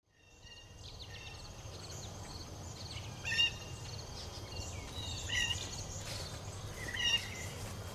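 Small birds chirping and trilling over a steady low background rumble, fading in from silence at the start.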